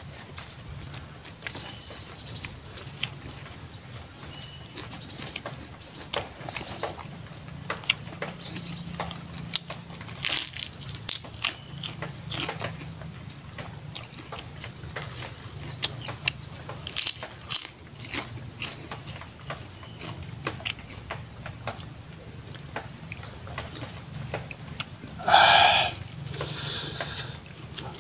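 Close-up wet chewing and crackly munching of raw leafy vegetables and rice eaten by hand, with birds chirping in short bursts of quick high notes in the background and a steady high tone underneath.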